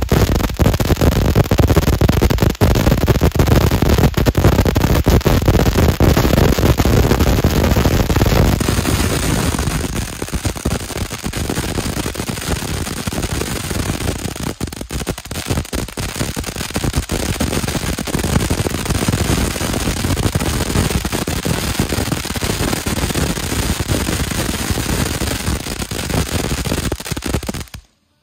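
Consumer ground firework fountain burning: a steady rush of spraying sparks full of crackling pops. It gets somewhat quieter about ten seconds in, and the sound cuts off suddenly near the end.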